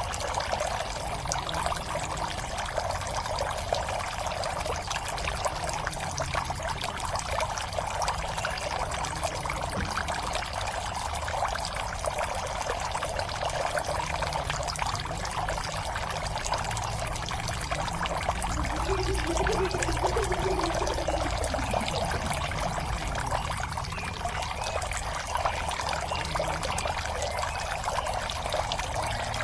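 Water steadily pouring and trickling into a fish pond, with a busy splashing patter. Partway through, a faint low rumble with a wavering tone swells for a few seconds and fades.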